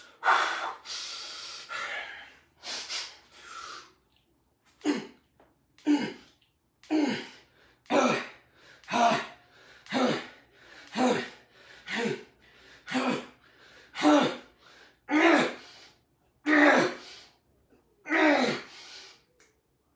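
A man breathing hard through a set of deep push-ups on push-up bars, with short forceful exhalations about one a second, one with each rep.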